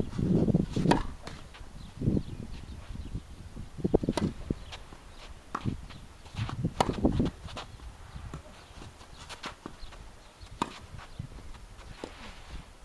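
Tennis rally: sharp knocks of the ball struck by rackets and bouncing on the court, at irregular intervals, with players' footsteps on the court surface.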